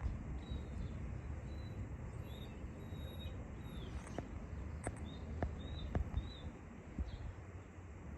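Outdoor ambience: a steady low rumble with small birds chirping faintly now and then, and a few sharp clicks in the middle.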